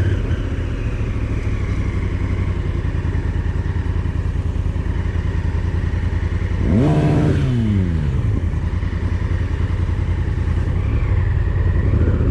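Off-road vehicle engine running steadily on a trail; about seven seconds in, the engine note rises briefly, then falls away over about a second.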